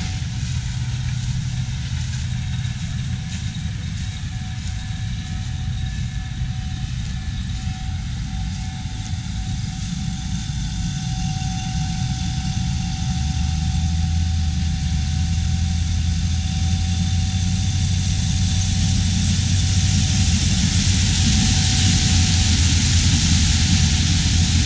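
Large diesel engine of harvest machinery running steadily, growing louder over the second half.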